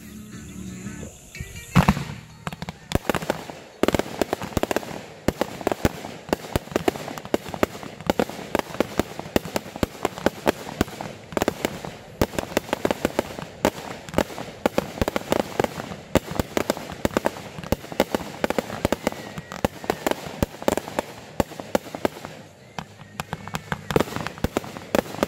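Aerial fireworks going off: one loud bang about two seconds in, then a dense, rapid run of sharp cracking reports and bursts, many a second, with a short lull near the end before the cracks pick up again.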